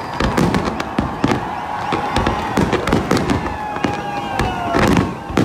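Fireworks display: a dense barrage of bangs and crackles, several a second, with a whistling tone underneath that slowly falls in pitch.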